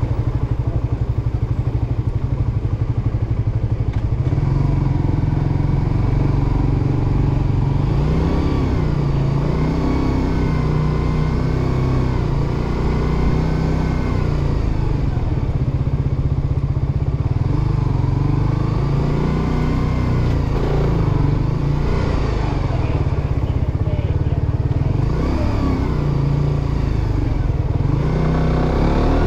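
Suzuki GSX-R150's single-cylinder four-stroke engine running as the motorcycle is ridden through traffic, its revs rising and falling. Near the end the revs climb steadily under acceleration.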